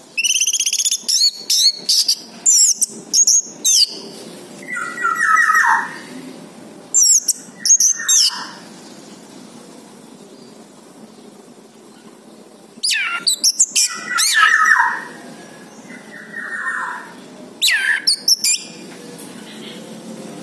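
Orange-headed thrush singing: several bursts of rapid, varied whistles and trills, some phrases gliding downward, with pauses of a few seconds between bursts.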